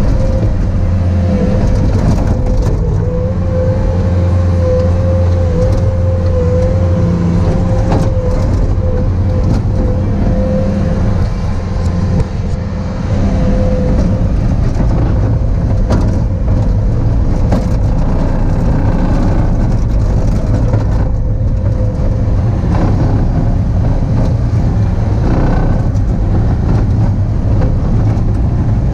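Bobcat T595 skid steer's diesel engine running steadily while it works, with a thin high tone that wavers slightly over it in the first half and scattered clicks and knocks.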